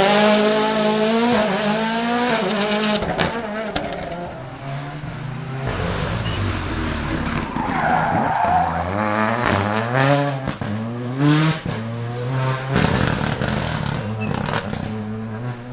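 Rally car driven hard, its engine revving up and dropping back again and again as it is thrown through the corners, with tyres skidding. Several sharp cracks come from the car near the middle of the run.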